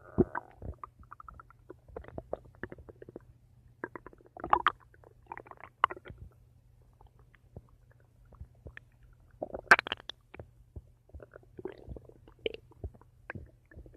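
Human stomach gurgling and rumbling: irregular short bubbly gurgles and squeaks, with a louder gurgle about two-thirds of the way through.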